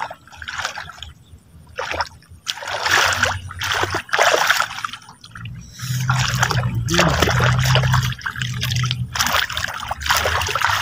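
Water splashing and sloshing in irregular bursts, a second or so apart, with a low steady hum for a few seconds in the middle.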